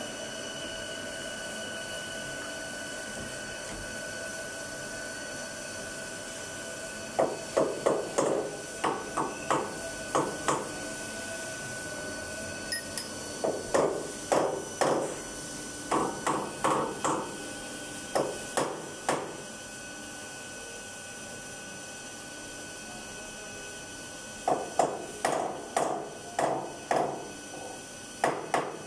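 Hammer tapping a workpiece held in a machine vise on a CNC mill table: sharp metallic knocks that ring briefly, coming in groups of several at about two or three a second with pauses between, over the steady hum of the machine.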